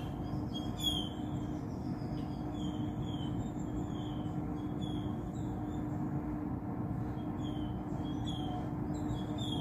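Steady background hum with a constant low tone, overlaid by short high chirps that come irregularly about once a second.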